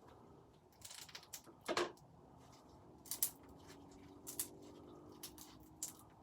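Homemade glue slime being squeezed and played with by hand, making irregular wet clicks and pops, the loudest just under two seconds in and again about three seconds in.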